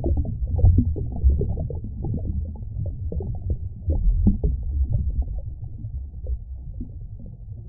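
Muffled underwater rumbling with irregular bubbling pops. All of it is low and dull, as if heard beneath the surface.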